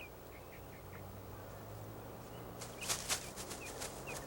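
Outdoor ambience with a bird giving short, repeated chirps, and a brief cluster of sharp clicks about three seconds in.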